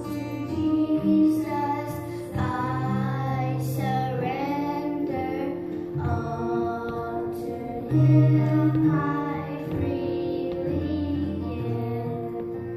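A young girl singing a song into a microphone over instrumental accompaniment with held bass notes.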